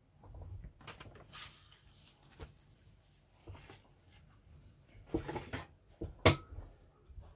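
Handling noise from a plastic model kit and its cardboard box: irregular rustling with a series of light knocks and clicks, the sharpest about six seconds in.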